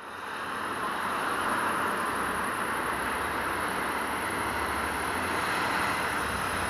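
Diesel engine of a fire-service crane truck running at a distance: a steady low rumble under an even hiss, fading in over the first second.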